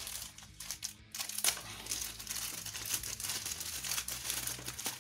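Plastic mailer bag crinkling and tearing as it is cut open with a folding pocket knife, sparse for about the first second and then a near-continuous crackle.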